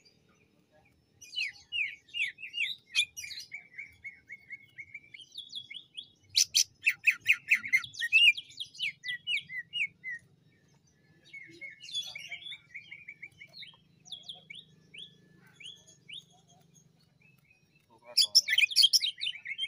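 Male cucak ijo (green leafbird) singing in bursts of rapid chirps and stuttering trills, the choppy 'ngentrok' style used as bait song. Loud quick runs come about six seconds in and again near the end, with short pauses between phrases.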